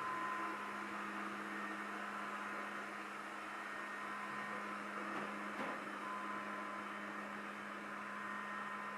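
Midea robot vacuum cleaner running: a steady motor and fan whir with a constant hum, and a faint knock a little past the middle.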